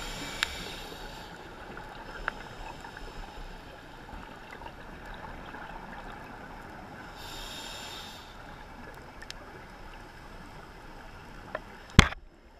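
Muffled underwater noise through a GoPro's waterproof housing, with the hiss of a scuba diver's exhaled regulator bubbles twice, about seven seconds apart. Near the end a sharp knock on the camera housing as a reef shark comes right up against the lens.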